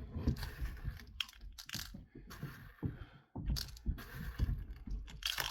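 BB containers and their plastic packaging being handled by hand, with irregular rustling, crinkling and light clicks and knocks.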